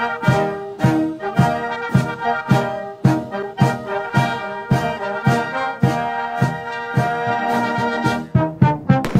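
Military band playing at a state welcome ceremony: brass chords over a steady drumbeat of about two strokes a second.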